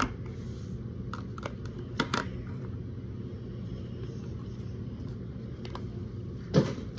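Light clicks and knocks of plastic sand-kit parts being handled, over a steady low hum. The loudest knock comes near the end.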